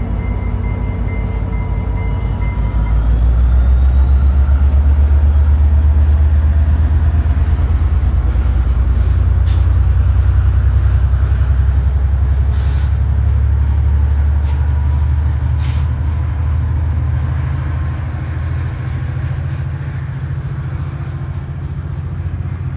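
Diesel locomotive of a commuter train throttling up and pulling away: a deep steady engine drone that strengthens about three seconds in, with a whine rising in pitch over the next several seconds and a few short air hisses in the middle, then slowly fading as it recedes. A pulsing beep stops about two seconds in.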